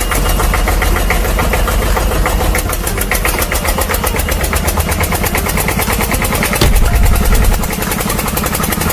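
Excavator engine sound running steadily with a fast, even beat, swelling louder briefly about seven seconds in.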